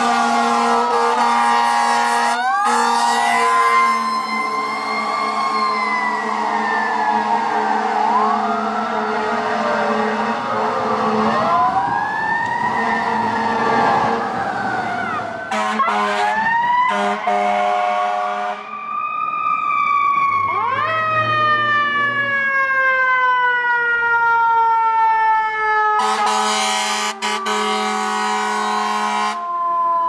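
Fire apparatus responding with sirens and air horns: a siren climbs quickly and then falls slowly in pitch, again and again, while air horns sound in long steady blasts at several points.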